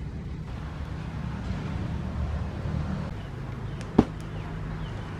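A steady low drone like a small motor running, with one sharp knock about four seconds in.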